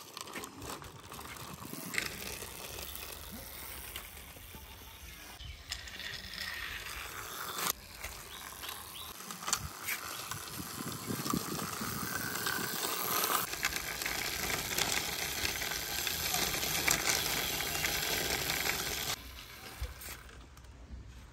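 Toy racing car's plastic wheels rolling and scraping over a rough concrete wall as it is pushed back and forth by hand, with scattered clicks. The rolling grows louder in the second half and drops away near the end.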